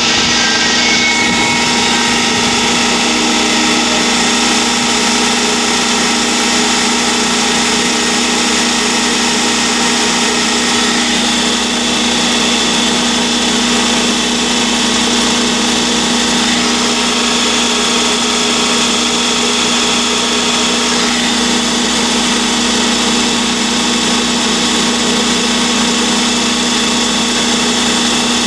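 3 HP rotary screw air compressor running steadily under load, pumping against a partly closed ball valve, driven by its electric motor through a larger pulley. A steady machine hum with several steady whining tones above it.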